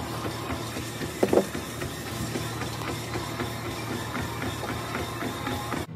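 Gym room noise: a steady low machine hum under an even haze of noise with scattered small clicks, and a louder clank about a second in. The sound cuts off suddenly near the end.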